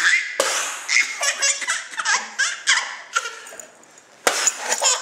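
Baby laughing in a run of short, high-pitched bursts, with a sharp knock just after the start and another near the end.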